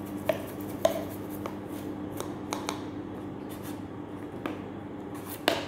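Dried thyme leaves being shaken out of a plastic spice jar, a run of irregular light taps and rattles as the jar is jolted, the loudest near the end. A steady low hum runs underneath.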